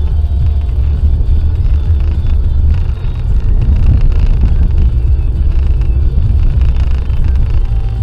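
Car driving at speed on a motorway: steady low rumble from the engine and tyres.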